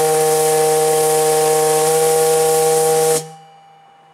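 Lighthouse fog-signal steam whistle, blown on compressed air, sounding one loud, steady blast: a chord of several tones over a hiss that cuts off sharply about three seconds in. The blast is clean, without the gurgling that water condensation in the whistle often causes.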